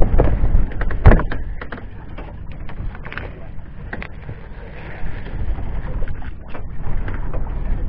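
A boat's deck hatch lid being lifted and moved, with a sharp knock at the start and another about a second in, followed by scattered smaller knocks and rattles. A steady low rumble runs underneath.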